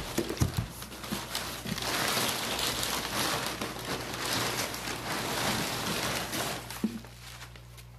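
Crumpled brown packing paper rustling and crinkling as hands dig through a cardboard shipping box, with a few small knocks, dying down near the end.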